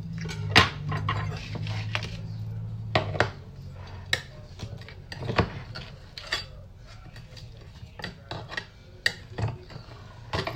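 Metal serving spoon scraping and clicking against a glass baking dish as a lasagna is cut and lifted out, in a string of irregular knocks and scrapes. A steady low hum runs under the first three seconds.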